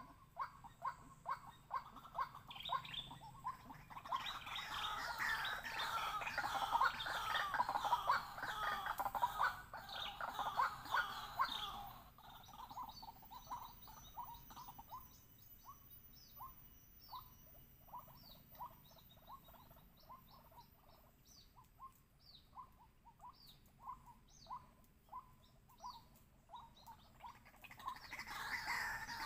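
White-breasted waterhen calling: a dense, loud run of harsh overlapping calls in the first part, then a steady series of short repeated notes, about two a second.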